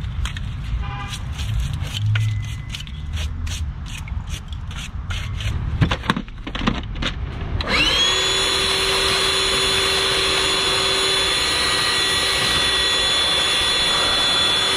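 Metal being worked by hand: a run of sharp clicks, knocks and scrapes as the rusted brake dust shield is broken away. About eight seconds in, a power tool spins up quickly and runs steadily at one pitch.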